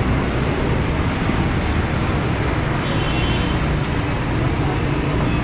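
Steady street traffic noise: the hum of vehicle engines and tyres on a busy road.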